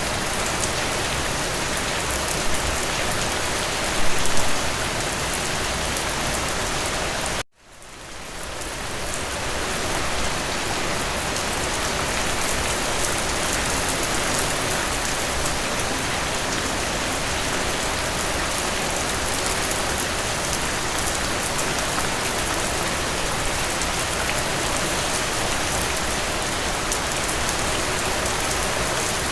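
Steady rain falling on a surface, an even wash of many drops. About seven seconds in it cuts out abruptly, then fades back up over a couple of seconds and runs on steadily.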